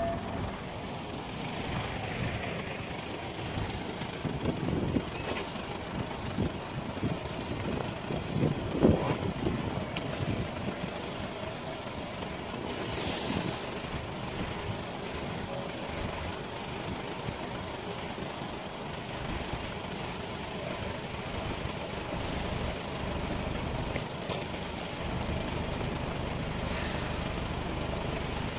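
Road vehicles idling, a steady low engine noise, with a short air hiss like a brake release about thirteen seconds in and fainter hisses later.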